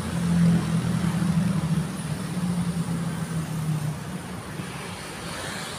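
A motor vehicle engine running steadily, a low hum that fades away about four seconds in.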